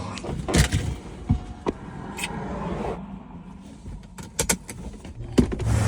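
A string of irregular clicks and knocks over a low rumble.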